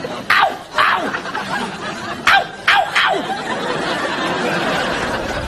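Studio audience laughing, the laughter growing fuller in the second half. Five quick, sharply falling whistle-like squeaks cut through it in the first three seconds.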